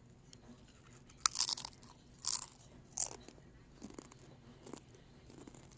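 Three short, sharp crunches about a second apart, followed by a couple of fainter ones.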